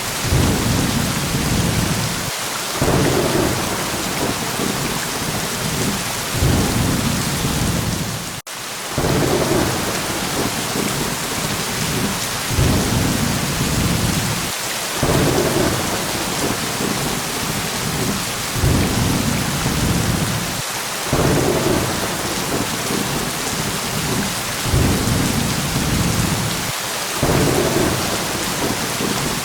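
Steady heavy rain with thunder rumbling low in swells every few seconds, and a momentary cut in the sound about eight seconds in.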